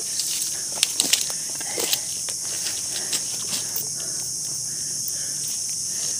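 Steady, high-pitched chorus of forest insects such as cicadas or crickets, with a few light rustles and clicks about a second in and again near two seconds.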